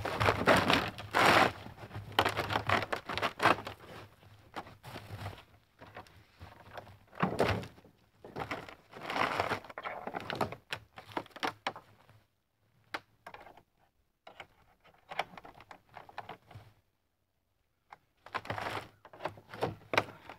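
Irregular thunks and crackling of dry branches and brush being handled and dropped, broken by a few short silences in the second half.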